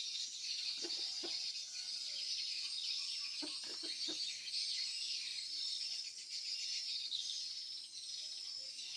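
Swiftlet lure-call recording: a dense, continuous high-pitched chattering twitter, with a few short lower chirps about a second in and again near the middle. It is the kind of call and mating-call sound played to draw swiftlets into a nest house.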